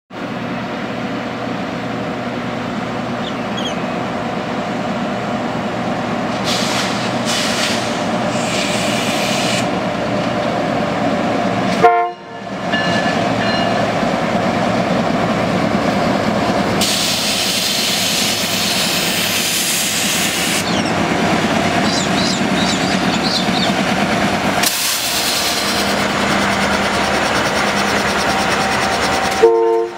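Two diesel locomotives hauling a narrow-gauge grain train, their engines running hard as the train accelerates past, with the rumble of wagons on the rails. The sound grows louder over the first seconds and breaks off briefly about twelve seconds in and again near the end.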